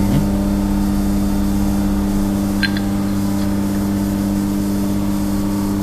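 Busbar punching machine's hydraulic pump motor running with a steady hum between punch strokes, with one faint click about halfway through.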